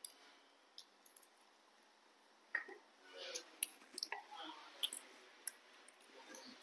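Faint, sharp little clicks and cracks of young monkeys cracking sunflower seeds in their teeth, a handful clustered in the middle few seconds.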